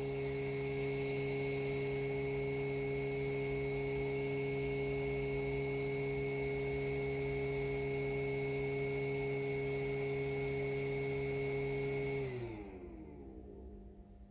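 A small electric motor or fan running with a steady hum, then switched off near the end, its pitch falling as it spins down.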